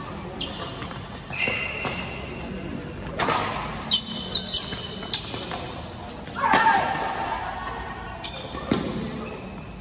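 Badminton rally in a large echoing hall: racket strings crack sharply against the shuttlecock a few times, mixed with short high squeaks of court shoes and scuffing footsteps as the players move.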